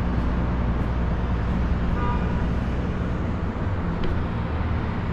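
Steady low machinery hum under a rushing wind noise, with a short faint horn toot about two seconds in.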